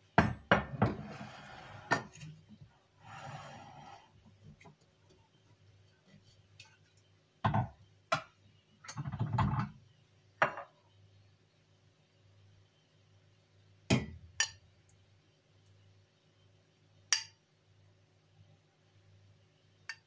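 A stainless steel pot is set down on a stone countertop with a run of knocks and clinks. Scattered separate knocks and clinks of the pot, its lid and a glass container being handled follow.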